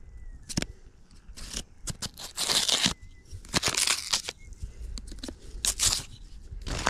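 Knife blade stabbing holes in the steel lid of a can of beans: a run of about seven sharp metallic crunches and scrapes, the longest about two seconds in. The holes vent the can so it won't burst when heated.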